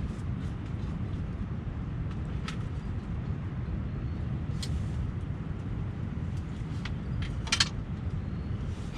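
Strong wind buffeting the microphone, a steady low rumble, with a few brief clicks, the loudest a short cluster near the end.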